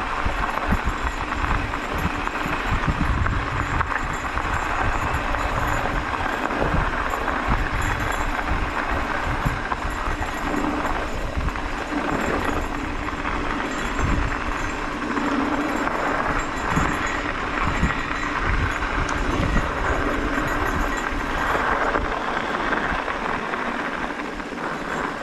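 Wind rush and rumble on a GoPro carried on a mountain bike, with tyres rolling over a packed dirt trail and irregular low thumps from the jolts of the ride.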